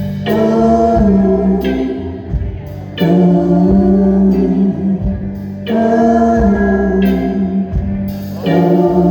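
Live band playing with singing, the voices holding long notes, a new phrase starting about every three seconds.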